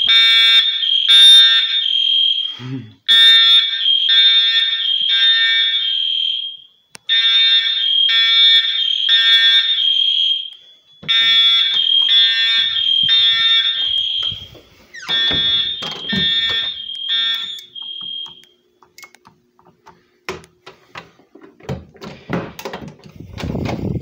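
Fire alarm horn sounding the temporal-3 evacuation pattern, a high tone in groups of three short blasts repeating about every four seconds, set off by a pulled manual pull station. It stops about eighteen seconds in, and a few clicks and knocks follow.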